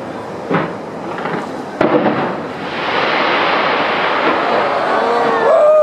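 New Year fireworks display going off: a sharp bang just under two seconds in, then a dense, continuous wash of crackle and rumble through the rest.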